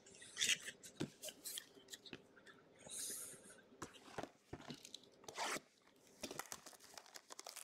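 Trading cards being handled and slid apart: faint, scattered clicks and scrapes of card stock, with a brief sliding hiss about three seconds in and a slightly louder scrape later.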